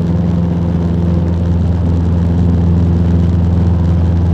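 Cessna 150's four-cylinder Continental O-200 engine and propeller droning steadily in flight.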